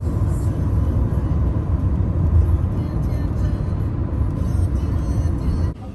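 Low, steady rumble of road noise inside a moving vehicle, cutting off abruptly near the end.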